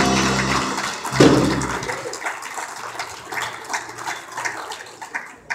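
A live church band with saxophone, guitar and drums ends a song: the last chord cuts off with a final hit about a second in that rings out. It is followed by scattered clapping and calls from the congregation.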